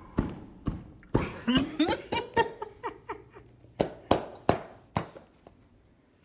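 A sneaker sole slapping against a towel-wrapped wine bottle, knocks about twice a second, to drive out a stuck cork. The knocks break off briefly in the middle and stop about five seconds in.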